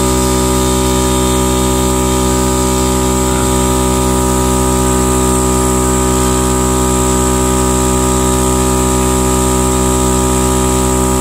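Smittybilt 12-volt portable air compressor running steadily while inflating a car tyre: an even, unchanging pitched drone with many overtones and no change in speed.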